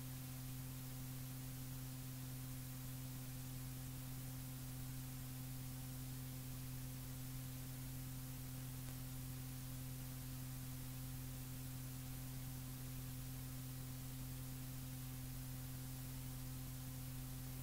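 Steady low electrical hum under an even hiss: the noise floor of a blank stretch of audio tape, with no programme sound.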